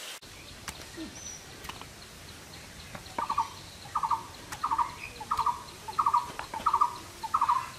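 A bird calling over and over, starting about three seconds in: each call is a short stutter of three or four quick notes, repeated about three times every two seconds. Faint clicks come before it.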